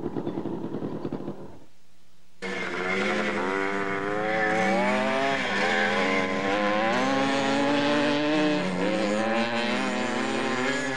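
Several vintage motocross motorcycle engines revving, their pitches rising and falling as the bikes race. The engine noise comes in suddenly after a short drop in level about two seconds in.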